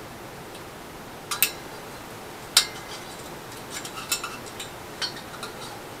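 Small metal clicks and clinks of a screwdriver working at a microwave magnetron clamped in a vise, prying off its washer and fittings. There is one sharp click about two and a half seconds in, the loudest, and a run of lighter ticks after it.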